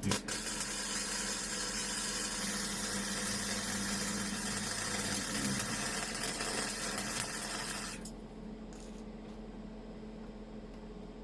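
Gasless flux-core MIG welding arc from a small 130-amp hobby welder on its lowest settings. It strikes with a sharp crack, then crackles and hisses steadily for about eight seconds while a bead is run, and cuts off suddenly. A steady low hum continues underneath.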